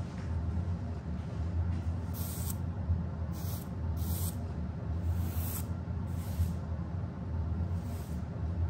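Household broom with plastic bristles sweeping a stone-tile floor: about six short, uneven swishes over a steady low hum.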